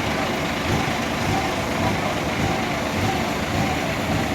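Heavy diesel vehicle engine running steadily amid general construction-site noise.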